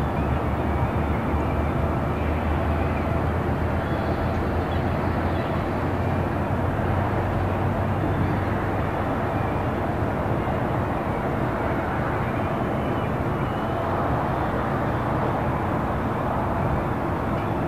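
Harbour ambience: a steady low rumble of distant road traffic, with a deeper rumble of a distant jet aircraft through the first half that fades after it. Faint high chirps of birds come and go.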